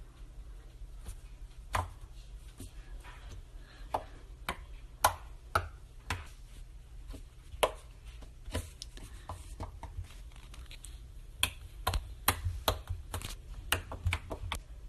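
Slime being squeezed and poked by hand, giving irregular sharp clicks and pops that come thicker near the end.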